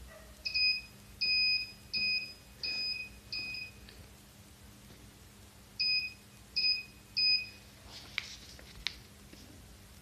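Electronic alarm buzzer of a model security system beeping a single high note: five short beeps, a pause of about two seconds, then three more, sounding an alert. Two sharp clicks follow near the end.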